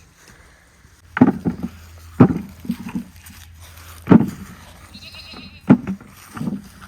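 Apples dropping into a plastic bucket: five hollow thumps at irregular intervals.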